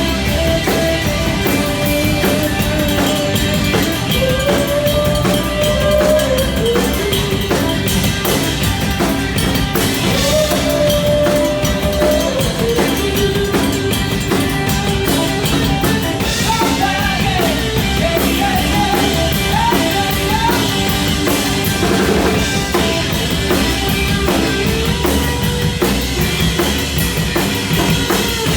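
Rock band playing an instrumental passage: drum kit keeping the beat under guitar, with a lead melody that slides and bends in pitch.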